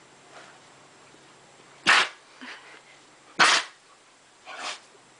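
A pet sneezing three times: two loud sharp sneezes about a second and a half apart, then a softer third near the end.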